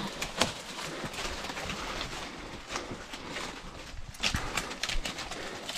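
Footsteps scuffing and crunching on a rocky, leaf-littered trail, with brush rustling and irregular knocks as people walk downhill.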